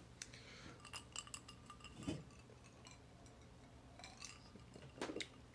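Faint clinks and small handling noises as a drinking glass is picked up and drunk from, over a low steady hum.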